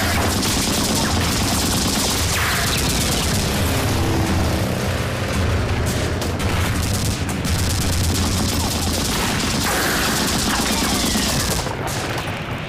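Film battle sound: continuous rapid gunfire and explosions over a steady low drone, as an aircraft strafes a hillside position. The sound thins out just before the end.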